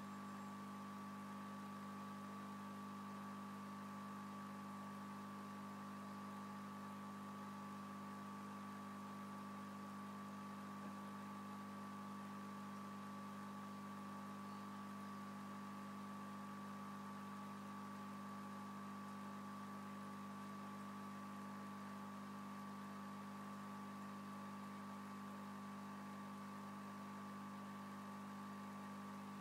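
Steady electrical hum, a constant low tone with a fainter higher whine over light hiss, unchanging throughout.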